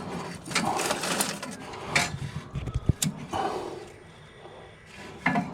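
Scratching, rustling and a few sharp knocks of waste wood offcuts being handled and stacked while a fire is laid without firelighters.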